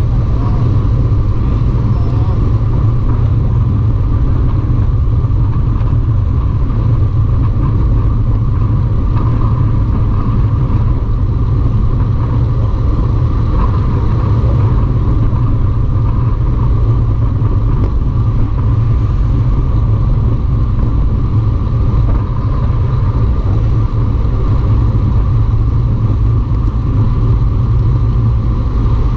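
Steady low rumble of wind and road noise on the camera of a road bicycle being ridden, unbroken throughout.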